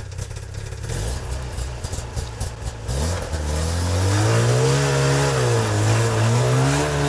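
Snowmobile engine running low, then revving up about three seconds in as it pulls away, its pitch rising and wavering with the throttle.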